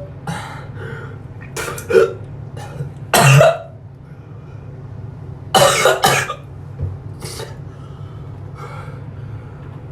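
A man coughing and clearing his throat in several short bursts, the loudest about three seconds in and a double cough near six seconds, from the burn of a very hot chili pepper.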